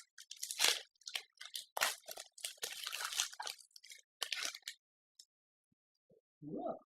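Foil booster pack wrapper crinkling and tearing as it is ripped open, a dense run of crackles that stops about two-thirds of the way through.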